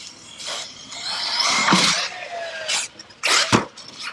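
Traxxas Sledge RC monster truck driving on wet ground: a noisy rush from the brushless motor and tyres with a whine that falls in pitch partway through, and several short bursts of noise.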